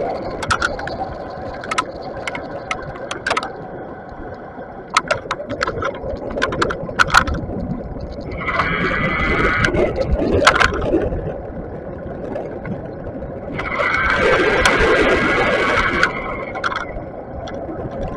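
Bafang BBS mid-drive electric bike ridden along a street: steady road and wind noise with repeated sharp clicks and rattles, and two louder stretches of whine with rushing noise, about 9 and 15 seconds in.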